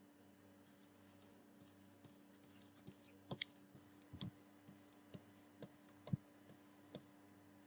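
Faint, scattered light taps, clicks and short scrapes of small hand work, over a steady low hum.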